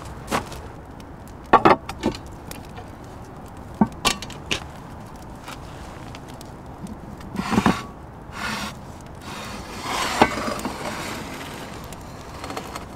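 Cast-iron Dutch oven being set into a wood-fired oven: a run of sharp knocks and clanks of the pot and its handle in the first few seconds, then longer scraping as it is slid over the brick oven floor beside the fire.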